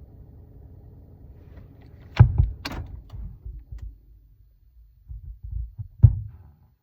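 Low hum inside a car, broken by sharp thuds about two seconds in, with low rumbling pulses, then another thud near the end. The low rumble sounded like the car made a fart.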